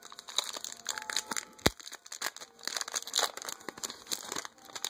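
Foil wrapper of a Pokémon TCG booster pack crinkling and crackling in irregular bursts as it is handled, with one sharp click about 1.7 s in.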